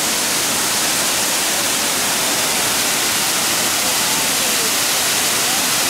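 Kintampo waterfall rushing: a steady, unbroken hiss of falling water, with faint voices underneath.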